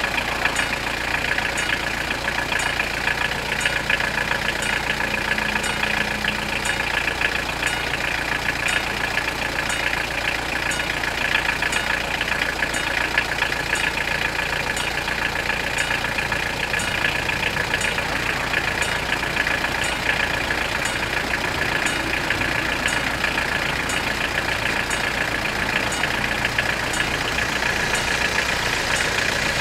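Level crossing warning bells ringing steadily and rapidly while the barriers are down, the signal that a train is approaching.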